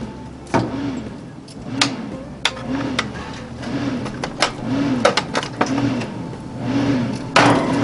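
Green Mountain Grills Daniel Boone pellet smoker running, its hum rising and falling about once a second, a noise that is normal for this grill. Metal tongs click and clank against the pan and grate several times, loudest near the end.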